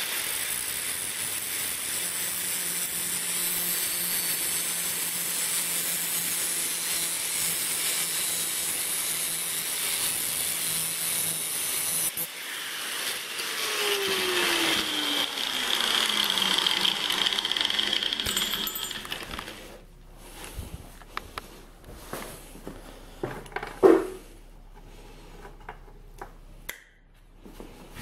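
Angle grinder cutting a small piece of scrap steel held in locking pliers: a steady, high-pitched grinding hiss for about twelve seconds. The sound then changes and runs on with a falling whine until about nineteen seconds in. Light handling clicks follow, with one sharp metal clank about twenty-four seconds in.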